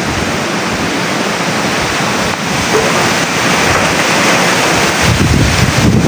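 Typhoon wind rushing through banana leaves and trees as a steady, loud hiss, with gusts buffeting the microphone about five seconds in.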